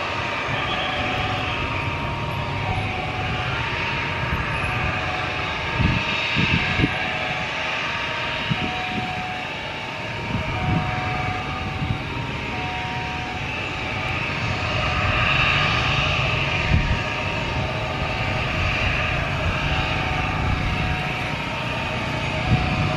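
Jet airliner's engines running at low thrust as it taxis on the runway: a steady rumble and hiss that swells a little past the middle. A few low thumps come about six seconds in.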